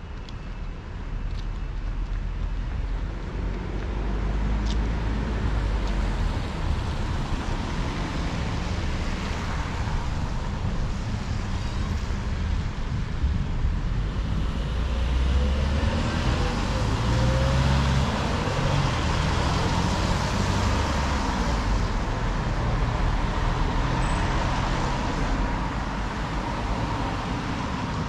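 Road traffic on a city street: cars passing with engine and tyre noise, growing louder after the first few seconds. Around the middle, a passing vehicle's engine note rises and falls.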